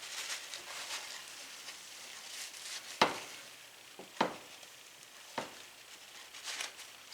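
Faint sizzling from the skillet of cheeseburger pasta, broken by three sharp knocks about a second apart.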